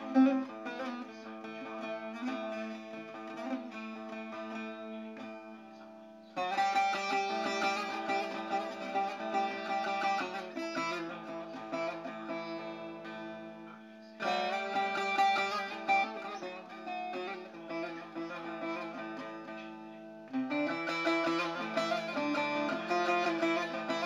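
Bağlama (saz), the long-necked Turkish lute, strummed in an improvised solo, with a steady low drone beneath the melody. Louder strummed passages break in suddenly about six, fourteen and twenty seconds in, each fading before the next.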